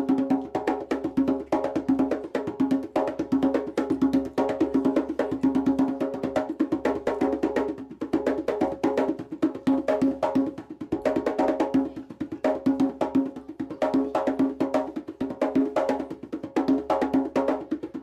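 A djembe played with bare hands in a basic rhythm: fast, evenly repeating strokes that mix a ringing, pitched tone with sharper, higher hits.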